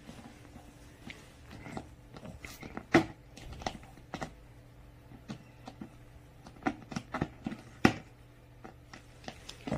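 A French bulldog gnawing at the cap of a plastic PET water bottle: irregular sharp clicks and crackles of plastic under its teeth, the loudest about three seconds in and just before eight seconds, over a faint steady hum.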